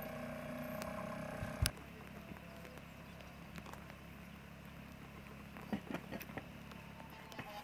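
Small outboard motor on an inflatable rescue boat running steadily under way. A sharp click comes about a second and a half in, after which the motor is quieter.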